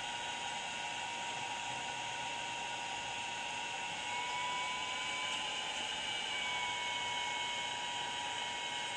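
Steady whir of a Puhui T-862++ infrared rework station's cooling fan running while the top heater reflows the VRAM chips, with a thin high whine over the rushing air. The whine rises a little in pitch and level about four seconds in, then settles back.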